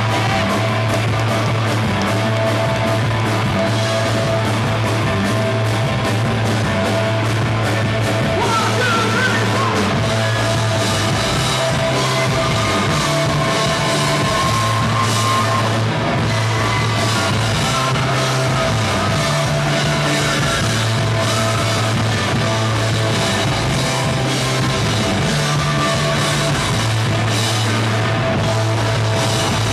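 A rock band playing live: electric guitars and drum kit over a bass line that steps between notes, with a voice singing.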